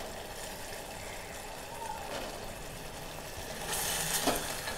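Milk poured in a stream into a steel saucepan of hot vermicelli payasam on a gas burner: a faint, steady pouring and sizzle that grows a little louder near the end.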